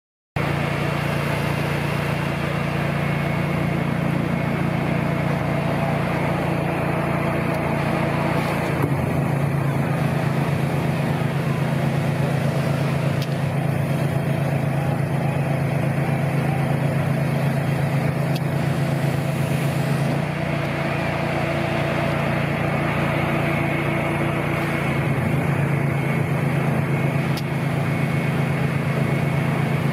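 An engine running steadily, a continuous low hum with overtones that shifts slightly in pitch a few times.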